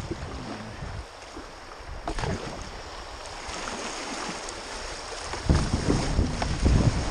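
Water rushing and splashing around a plastic kayak as it runs through a shallow river riffle, with a few paddle strokes dipping into the water. From about five and a half seconds in, wind buffets the microphone and the low rumble grows louder.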